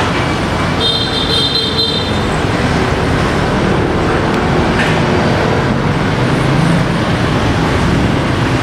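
Steady road traffic noise, with a brief high-pitched tone about a second in.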